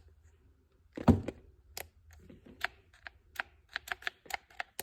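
Cordless impact driver being handled: a knock about a second in, then a string of sharp, irregular plastic clicks as its trigger and lock switch are worked, with the motor not running.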